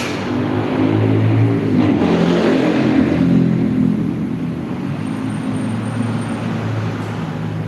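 A car engine running, its pitch rising a little about two seconds in and then settling, after a sharp clank at the very start.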